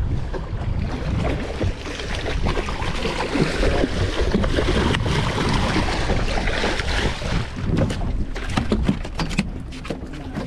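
Fishing boat running across open water: a low rumble and rushing water with wind buffeting the microphone. A run of short knocks and clicks comes near the end.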